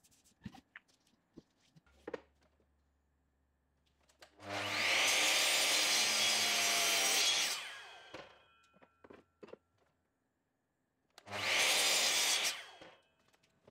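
Bosch 12-inch sliding mitre saw cutting through a wooden blank twice. A long cut comes about four seconds in and winds down with the blade ringing, and a shorter cut comes near the end. A few light knocks are heard before the first cut.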